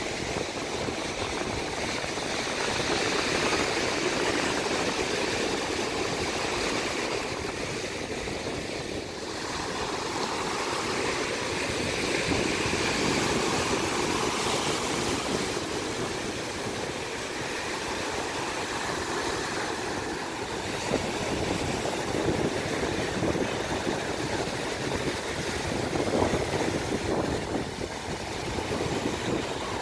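Surf breaking and washing up onto a sandy beach: a steady rushing noise that swells and eases.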